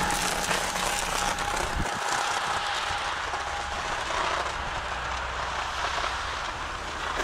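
Double-deck passenger train with a Re 460 electric locomotive at its rear running away: steady wheel-and-rail noise slowly fading. A faint wheel squeal dies out in the first couple of seconds, and there is a single low knock about two seconds in.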